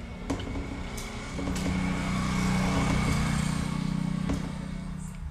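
A motor vehicle passing by, its sound swelling for about a second and a half and then fading over the next two. A few light taps come from a marker writing on a whiteboard.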